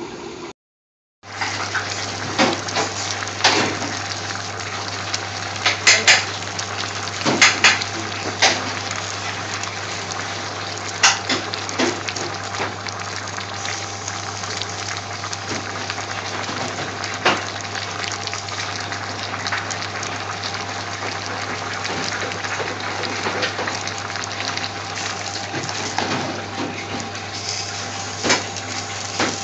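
Pan of chopped onion, peppers, carrots and tomato in water boiling hard on high heat: steady bubbling over a low hum, with frequent sharp pops and clicks, after a brief dropout right at the start.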